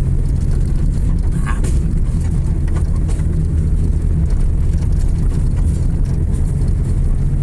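Car on the move: a steady low engine and road rumble.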